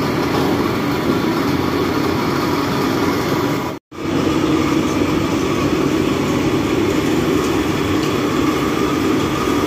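Steady loud roar of a large commercial kitchen's machinery and burners, cut off briefly about four seconds in.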